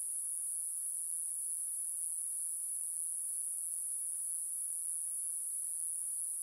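A steady, high-pitched hiss at an even level, with no music and no other sound over it.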